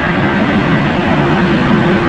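Jet engines of a United Boeing 757 running at takeoff thrust during its takeoff roll: a loud, steady roar with no breaks.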